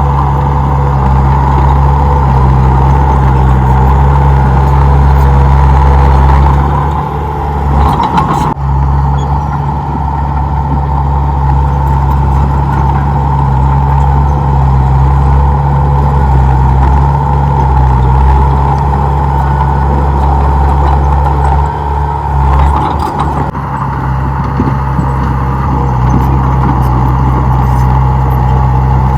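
Komatsu D31P bulldozer's diesel engine running steadily under load, with a constant whine above the engine note. Twice, about a quarter of the way in and again about three quarters in, the sound dips briefly with a short knock.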